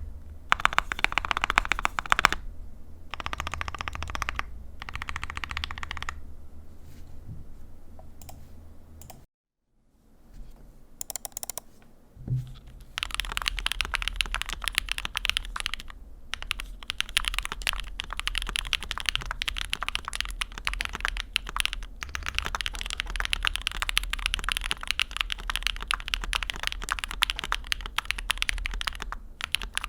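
Mechanical keyboard being typed on: lubed linear switches in an aluminium-plate board with PBT keycaps. Short bursts of keystrokes give way to a brief silence about a third of the way in, then steady fast typing on Durock POM linear switches.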